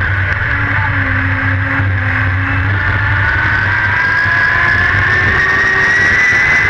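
Dirt-track race car's engine heard from inside the cockpit, running loud under throttle with a heavy rumble; its pitch climbs steadily over the last few seconds as the car accelerates.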